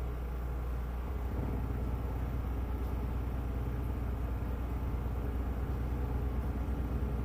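An engine running steadily with a rapid low pulsing that steps up slightly about a second in.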